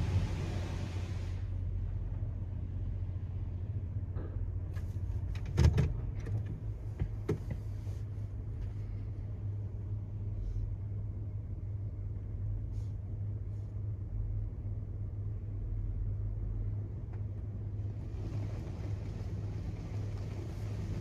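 Inside a car's cabin: a steady low hum from the idling car, with a few knocks and one louder thump about five to six seconds in. From about eighteen seconds in, the Petit AccuTrac 360i car wash's high-pressure water spray starts hitting the car with a steady hiss.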